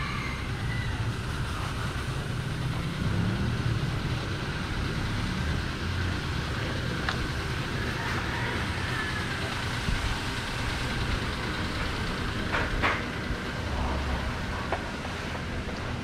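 Street noise: a steady rush of motor vehicles, with a short clatter of sharp knocks about three seconds before the end.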